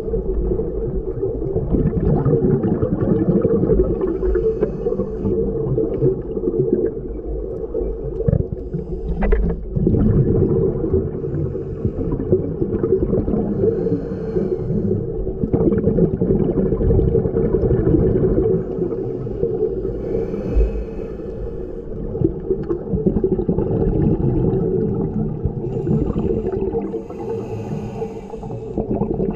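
Underwater recording of a scuba diver breathing through a regulator, with a burst of exhaled bubbles every few seconds over a steady low hum.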